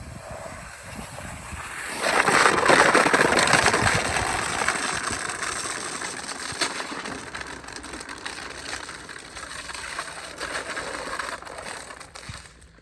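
A sled sliding over snow and ice: a rough scraping hiss that comes in abruptly about two seconds in and gradually fades away.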